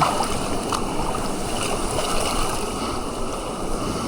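Steady rushing and splashing of water close to the microphone, with a few small splashy ticks.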